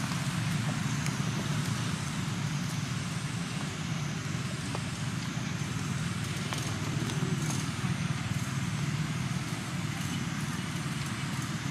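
Steady low engine-like rumble, as of a vehicle running nearby, with a few faint clicks over it.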